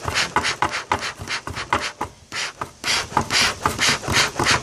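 Bee smoker's bellows pumped fast, a quick run of short puffs of air at about four a second with a brief pause about two seconds in, fanning the fuel to get the smoker going.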